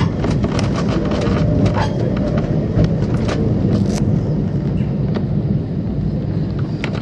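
Cable-hauled Great Orme tram car running along its track, heard from aboard: a steady low rumble with scattered clicks and rattles.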